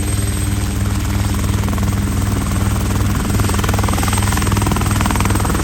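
Steady, loud engine drone with a fast, even pulse, holding level throughout.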